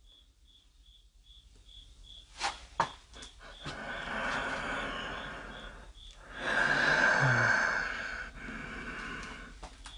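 A man breathing heavily close to the microphone, several long breaths from about four seconds in, after two sharp clicks. A faint high-pitched pulse repeats a few times a second in the background.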